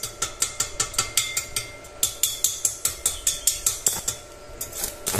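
Stick-welding electrode being tapped and scratched against a steel tube to strike the arc: a rapid, irregular run of sharp clicks and snaps, about six a second, that thins out near the end.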